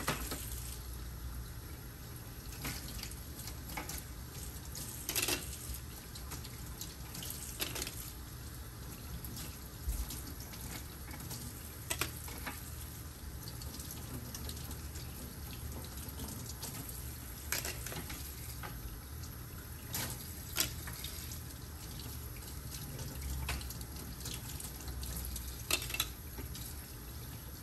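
Tap water running steadily into a stainless steel sink while plastic dental impression trays are rinsed under it to wash off the Cavicide disinfectant, with a few short clacks as the trays knock against the sink and counter.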